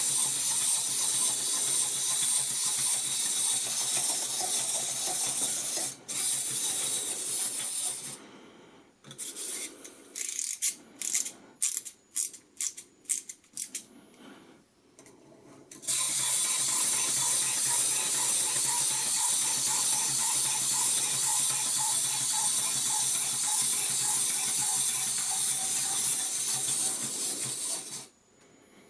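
Clockwork mechanism of a tin wind-up toy robot buzzing steadily in two long runs. Between them are several seconds of scattered light clicks and knocks.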